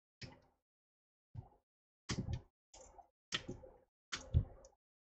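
A series of about seven short, light clicks and knocks: an opened iPhone being handled and its screen connected to the board.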